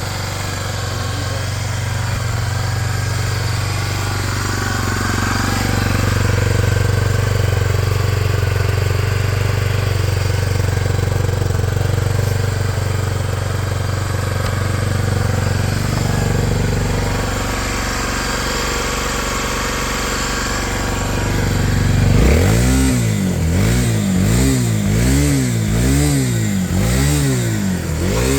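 Honda XR250 Tornado's single-cylinder four-stroke engine idling steadily, then, about three-quarters of the way through, revved in about six quick blips, roughly one a second, each rising and falling in pitch.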